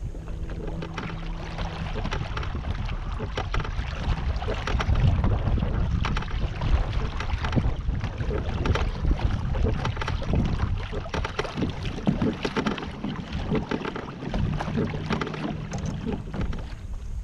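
Kayak moving across lake water: irregular splashing and slapping of water against the hull, with wind on the microphone.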